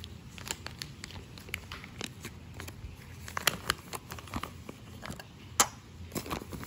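Plastic cat-food packet crinkling and rustling as it is handled and emptied into a ceramic bowl, with scattered small clicks and one sharper click near the end.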